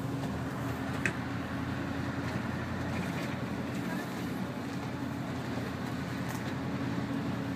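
Mercedes V8 diesel engine of a Neoplan N116 Cityliner coach running steadily under way, heard from inside the cab, with a short click about a second in.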